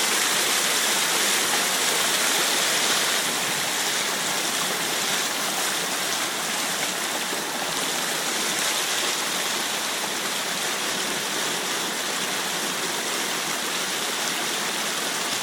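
Flooded creek rushing over and past a road bridge: a steady, fairly loud rush of fast-moving water.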